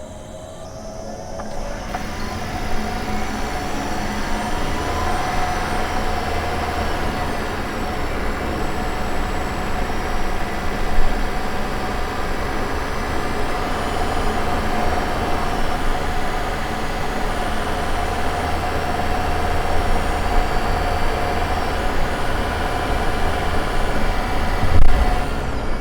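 Honda ZR-V's running gear heard from a microphone inside the engine bay. Mechanical and road noise swell over the first couple of seconds with rising whines, then settle into a steady run with a held mid-pitched whine and a low rumble. There is a brief knock about eleven seconds in and another near the end. The owner suspects an abnormal noise comes from the engine bay.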